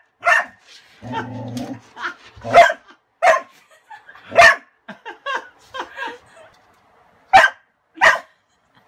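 Dog barking over and over at a broom that stands over its toy, in short sharp barks with a run of quieter yips in the middle. The barking comes from the dog's fear of the broom and its frustration at the toy trapped beneath it.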